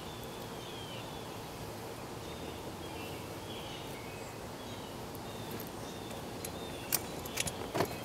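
Faint, short high chirps of distant songbirds over a steady outdoor background hiss, with a few sharp clicks near the end.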